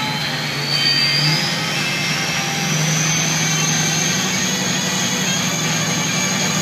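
Red GMC Sierra pickup's engine running steadily, with a slight step up about a third of the way in and a thin high whine that rises slowly in pitch.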